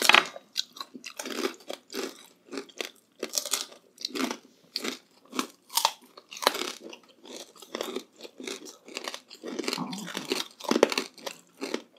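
Close-up crunching and chewing of crispy chicharon bagnet (deep-fried pork belly crackling), a quick irregular run of brittle crunches from bite after bite.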